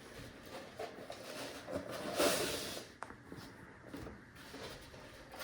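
Rustling and handling sounds as the unit and its foam packaging are moved about, with a louder rustle about two seconds in and a short click about a second later.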